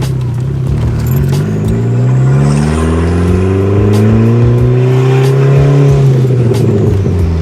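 Car engine under acceleration, its pitch climbing steadily for several seconds and then dropping quickly near the end, as at a gear change or as the throttle is let off.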